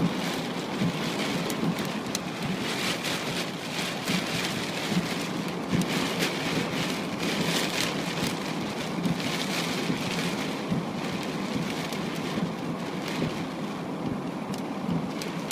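Steady rain falling during a thunderstorm, with many small ticks of drops striking a surface close by.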